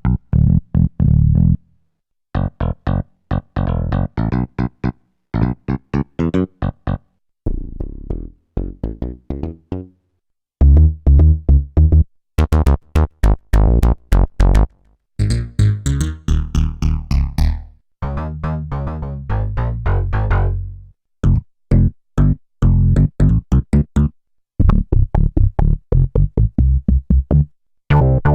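Roland JD-990 digital synthesizer playing a run of patch demos: rhythmic phrases of short, repeated notes over a heavy bass. Each phrase breaks off and a new one starts after a brief silence, several times over.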